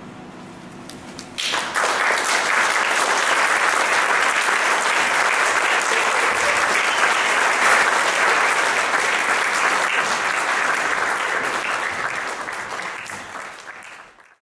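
Audience applauding. The clapping starts suddenly about a second and a half in, holds steady, and fades away near the end.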